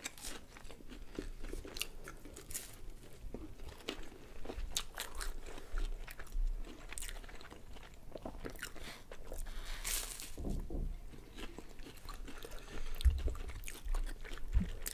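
Close-up crunching and chewing of crisp puff-pastry pizza, with many short sharp crunches as the pastry is bitten.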